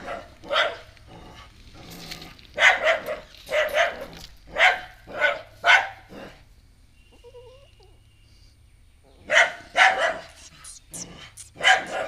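A dog barking repeatedly in short, sharp barks at a newly arrived stray puppy, a run of about eight barks, a pause of about three seconds, then four more.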